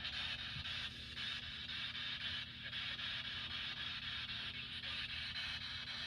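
Steady low hum with an even hiss over it, unchanging throughout, with no distinct knocks or voices.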